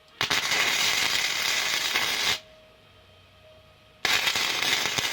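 Arc welder laying a plug weld in the go-kart axle's steel: two bursts of steady arc crackle, the first about two seconds long, then a short pause, then a second burst of about a second.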